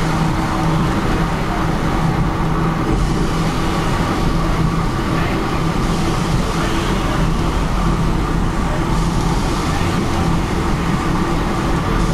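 Steady running sound of a 1905 BC Electric interurban car under way, heard from inside: a continuous hum of the electric traction motors and gearing over the rumble of steel wheels on rail.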